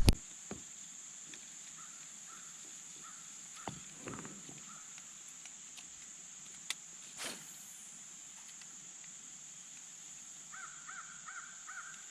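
Birds calling: a few faint short calls a couple of seconds in, then a clearer run of about five quick calls near the end, over a steady high-pitched drone, with a few soft clicks.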